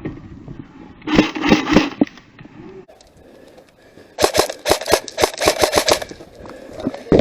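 Airsoft gun firing in rapid automatic bursts: a short burst about a second in, then a longer burst of nearly two seconds about four seconds in.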